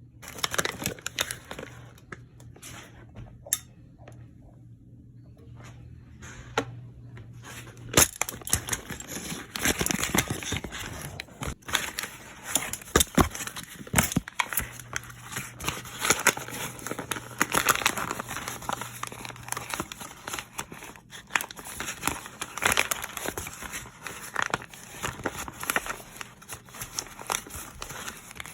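Paper microwave-popcorn bag being handled and opened: crinkling, rustling and tearing. A few scattered crackles at first, then a dense, continuous run of them from about eight seconds in, over a faint steady hum.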